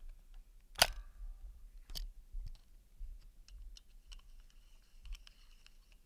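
Scattered sharp clicks and ticks over a low hum, the loudest about a second in and another at two seconds; a faint steady high tone comes in about two-thirds of the way through.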